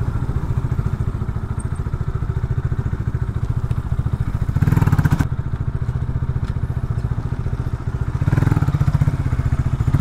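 Geon Scrambler 250's single-cylinder engine running with a fast, even exhaust pulse as the motorcycle rides along. It grows louder briefly about halfway through and again near the end.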